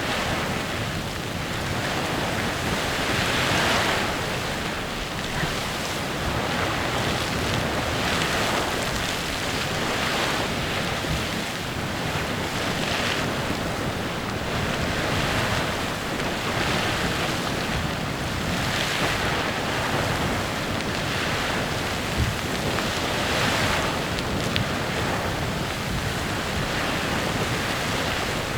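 Clepsydra Geyser erupting: a steady rushing hiss of steam and splashing water that swells and eases every few seconds.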